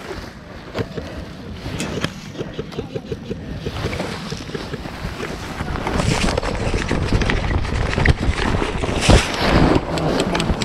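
Wind buffeting and rubbing noise on a body-worn camera microphone as the player moves. In the first few seconds there is a quick, even run of ticks, about four a second. The rushing noise grows louder about halfway through.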